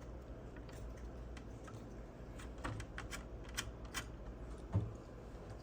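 Scattered small clicks and taps of a screwdriver working tight small screws out of a mixing console's plastic front panel, with a soft knock near the end.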